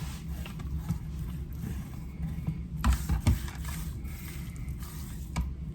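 A few sharp clicks and taps from handling a seasoning shaker while ribs are being seasoned: two close together about three seconds in, one more near the end, over a steady low hum.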